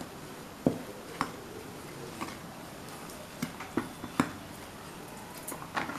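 Metal spoon stirring a dry mix of gram flour, rice flour and ground spices in a ceramic bowl, with irregular light clinks and taps of the spoon against the bowl.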